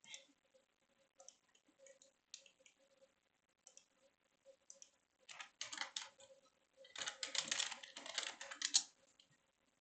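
Typing on a computer keyboard in two quick bursts, about five seconds in and again from about seven seconds in, with scattered single mouse clicks in between.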